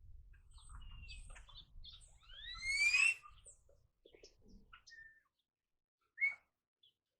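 Birds chirping and calling, with one loud, rising whistled call about three seconds in and a short call near the end.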